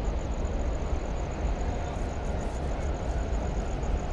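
Steady low rumble with a hiss of outdoor noise at the waterfront; no ship's horn sounds.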